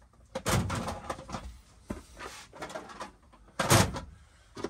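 Handling noises as boxes and jars are moved about in a tool chest: a scraping slide about half a second in, a few light knocks, and a sharper, louder knock just before four seconds in.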